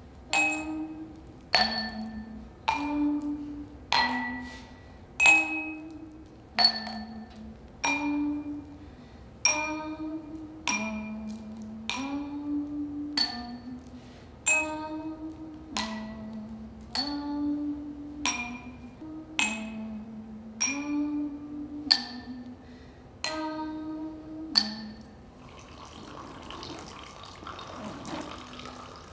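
Small stone chips dropped one at a time into drinking glasses, about twenty bright clinks roughly one a second, each glass ringing briefly. Underneath runs a low tune of held notes stepping between two or three pitches. Near the end the clinks stop and water begins pouring from a pitcher into the glasses.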